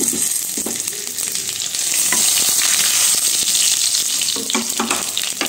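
Tempering spices (cumin seeds, dried red chillies, curry leaves and asafoetida) sizzling and crackling in hot oil in a kadhai, stirred with a wooden spatula.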